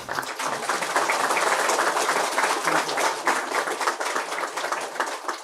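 Audience applauding: dense, steady clapping from many hands that stops near the end.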